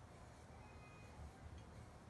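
Near silence: room tone with a low steady hum.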